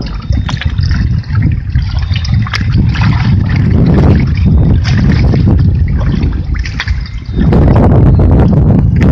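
Wind buffeting the microphone over water lapping and splashing against a boat's hull. The rumble grows louder and steadier about seven and a half seconds in.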